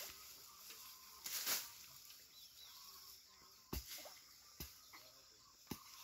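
A hand hoe chopping into dry, stubbly soil: three dull thuds about a second apart in the second half, with a brief louder rush of noise about a second and a half in.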